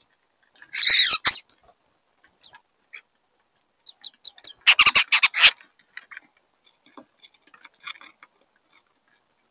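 European starlings giving harsh, chattering calls in short bursts: one about a second in, a run of quick high squeaky notes around four seconds, and a dense clicking chatter around five seconds.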